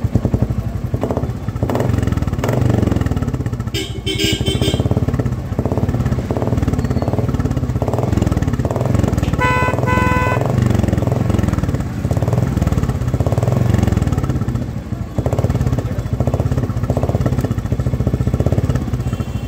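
Royal Enfield Classic 350 single-cylinder engine idling with a steady low pulse. A light clatter comes about four seconds in. A vehicle horn beeps twice briefly about halfway through.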